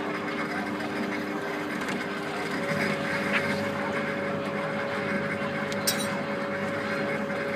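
Suspended monorail ride car humming steadily as it runs along its overhead rail, with a higher steady whine joining about a third of the way in and a short click about six seconds in.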